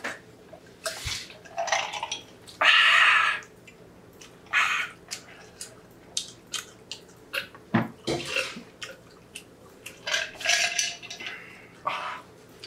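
Eating and drinking mouth sounds: chewing, lip smacking and gulps of water from a glass mug, in a string of short noisy bursts. There are two sharp knocks, about a second in and near the eight-second mark.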